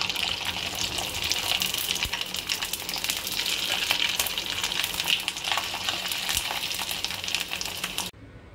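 Sago papad deep-frying in hot mustard oil in a kadhai: a steady sizzle full of fine crackles, which stops abruptly near the end.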